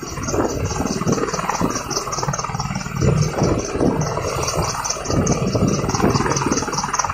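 Helicopter engine and rotor running steadily, a dense, uneven rumble, over a fast high-pitched pulsing chirp of about five pulses a second.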